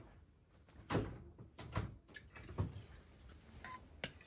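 Clothes hangers sliding and knocking along a shop clothes rail as garments are pushed aside one by one, with the rustle of the fabric: four knocks about a second apart, the last and sharpest a click near the end.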